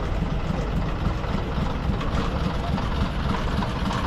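Bus engine idling steadily with an even, low rumble.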